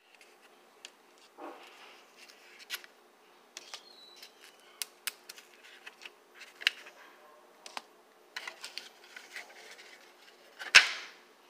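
Thin clear plastic cookie-dough tray crackling and clicking as a hand pulls the pieces of dough apart and lifts them out. The clicks come irregularly, with the loudest crackle near the end.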